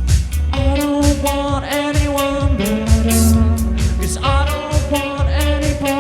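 Live indie band playing a steady drum-kit beat with bass under long held melodic notes that change pitch every second or two.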